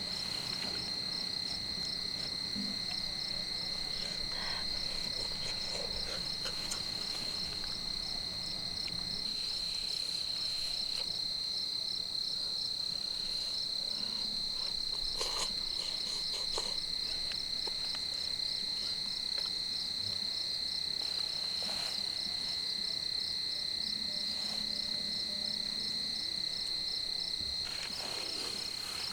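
Insects trilling: one steady, unbroken high-pitched trill that never lets up, with a few faint knocks here and there.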